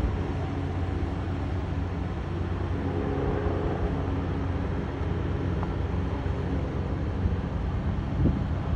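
Helicopter running on a rooftop: a steady droning hum from the engine and rotor at an unchanging pitch, with a couple of short thumps about eight seconds in.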